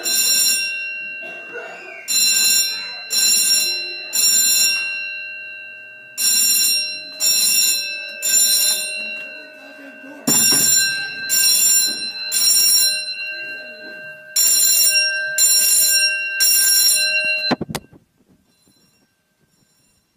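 Building fire alarm sounding in the temporal-three evacuation pattern: three blasts about a second apart, repeated every four seconds or so, with ringing tones lingering between them. It cuts off suddenly near the end.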